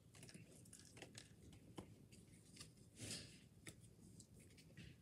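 Faint flicks and rustles of Pokémon trading cards being handled and flipped through, with a longer rustle about three seconds in.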